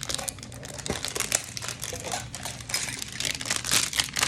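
Plastic wrapping being pulled and peeled off a Pokémon Poké Ball tin, a dense irregular crinkling and crackling that grows louder near the end.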